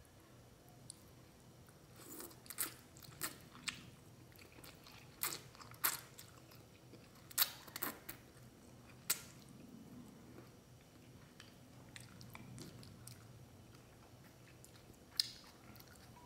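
A person eating ramyun noodles with chopsticks and a wooden spoon: faint chewing with a run of short, sharp mouth and utensil clicks over the first several seconds, fewer afterwards, and one more near the end.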